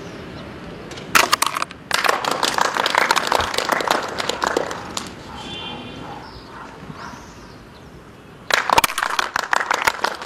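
A small group clapping their hands in two bursts, the first starting about a second in and the second near the end.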